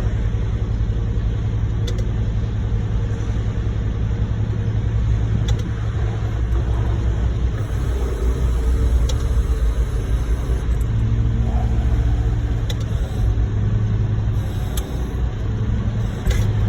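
Heavy diesel engine running steadily, a low rumble that swells a little now and then.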